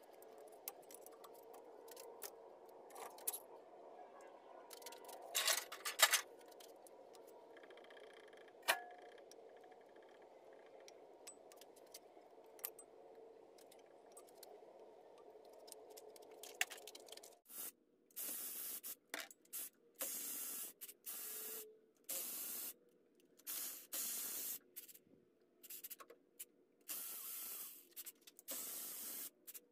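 Metal knocks and clinks from parts being handled during the teardown of an air-cooled VW engine, with two sharp knocks in the first half. From about halfway, a series of short, sharp hissing bursts with brief gaps between them.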